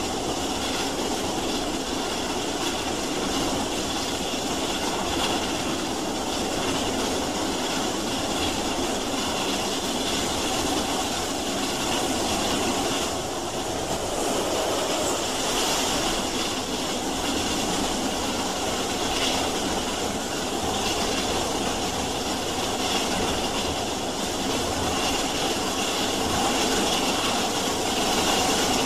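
Steam railway train running: a steady, even mix of rumble and hiss.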